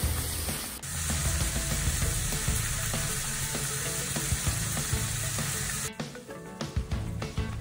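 Olive oil sizzling in a heated cooking pot: a steady hiss that starts suddenly about a second in and gives way to scattered crackles near the end.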